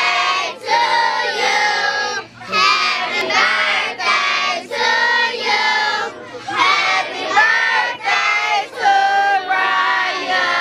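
A crowd of children and adults singing and shouting together loudly, many voices at once in short phrases.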